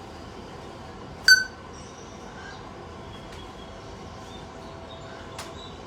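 A pet parrot gives one short, sharp call about a second in, followed by a few faint chirps, over a steady background noise.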